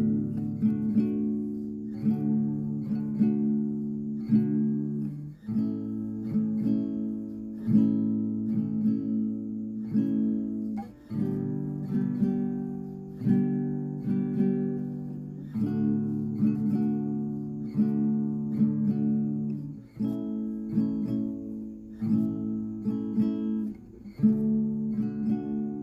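Background music: an acoustic guitar strumming chords, changing chord about every two seconds.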